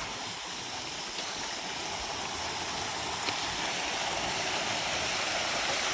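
Waterfall rushing, a steady hiss of falling water that grows slowly louder.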